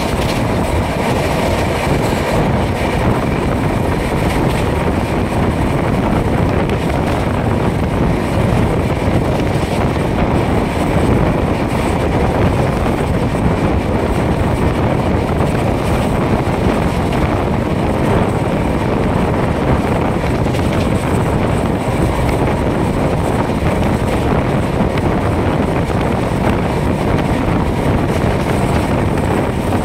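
Express passenger train running at speed, heard from beside the coach: a steady rumble of wheels on rail mixed with heavy wind on the microphone.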